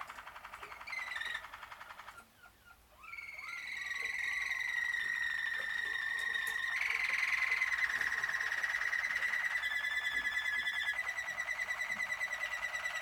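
Malinois (Waterslager) song canaries singing: long, drawn-out rolling tones held near one pitch, broken about two seconds in by a short pause of soft notes before the rolls resume.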